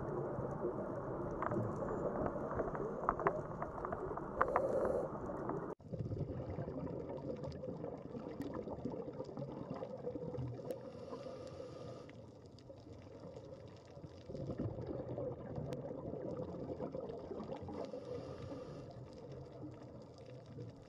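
Underwater ambience picked up by the camera: a steady muffled water rush with scattered sharp clicks and occasional short bursts of bubbling. The sound changes abruptly about six seconds in, at a cut between clips.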